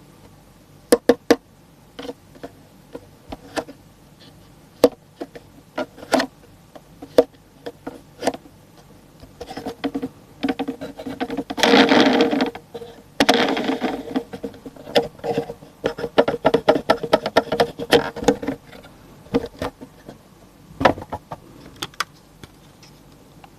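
Diecast toy truck and its packaging being handled at close range: scattered sharp clicks and taps, with a denser stretch of rustling and handling noise in the middle, loudest in two passes a little past halfway.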